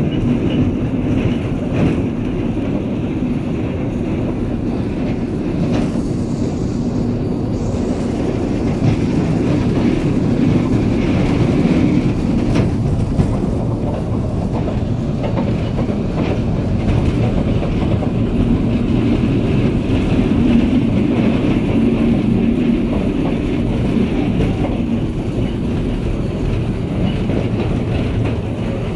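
Maltanka narrow-gauge park railway train running steadily, heard from an open carriage: a continuous rumble of wheels on the track with a few brief clicks.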